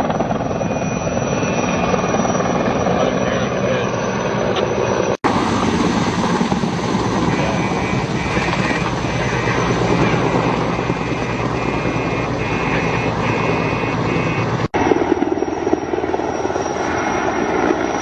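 Helicopter in flight: steady loud rotor and turbine engine noise. It cuts off abruptly twice, about 5 and 15 seconds in, and starts again at once, with the sound changing a little each time.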